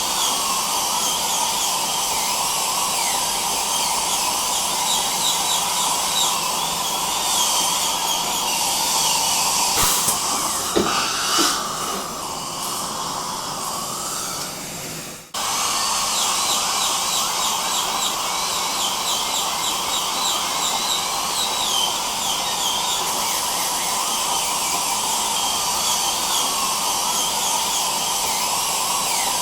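Dental drill and suction running continuously with a steady whine and hiss. About halfway through, the sound thins and glides up in pitch, then cuts out for an instant and comes straight back.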